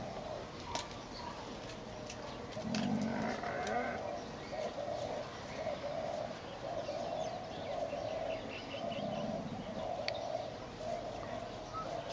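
An animal's soft low calls, repeated evenly about once a second from a few seconds in, with a few faint clicks.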